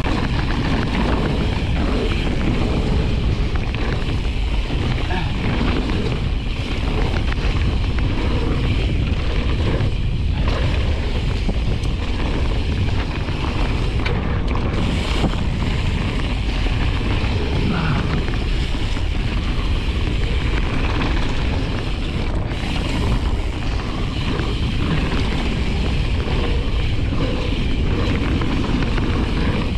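Steady wind rush on the action camera's microphone mixed with the riding noise of a 2021 Specialized Status 160 mountain bike going fast down a dirt trail.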